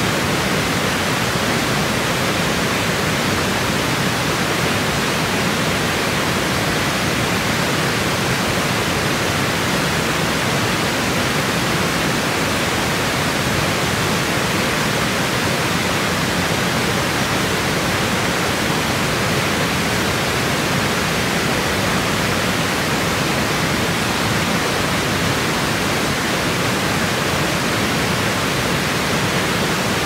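Small waterfall: water pouring steadily over a low weir and rocks, an even rushing that does not change.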